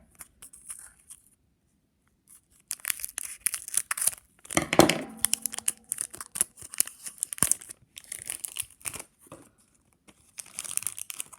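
A hockey card pack's wrapper being torn open and crinkled by hand, in irregular crackling spells with a short pause near the start and the loudest tear about five seconds in.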